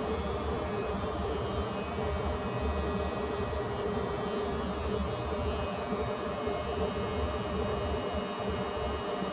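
Electric hair clippers buzzing steadily as they are run over the head.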